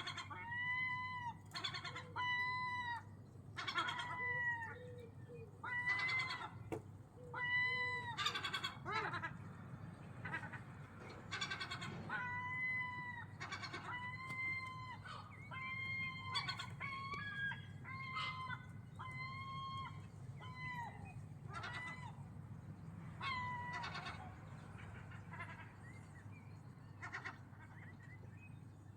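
Gulls calling over and over: a long run of short calls, each rising slightly and falling in pitch, about one a second and sometimes overlapping, thinning out and growing fainter near the end.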